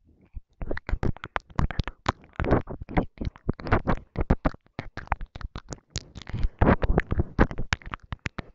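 Close-miked ASMR mouth sounds: quick wet clicks and smacks in a dense, irregular stream, with a few longer breathy stretches, starting about half a second in.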